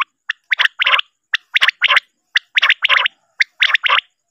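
Recorded common quail calls used as a hunting lure. Each phrase is a short note followed by a quick rattle of notes, repeating about once a second.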